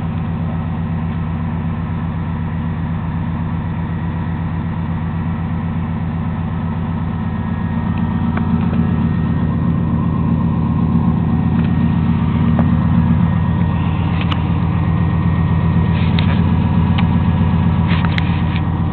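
Chevrolet pickup truck engine idling steadily as it warms up after a cold start in freezing weather. It gets somewhat louder about eight seconds in, and a few light handling clicks come near the end.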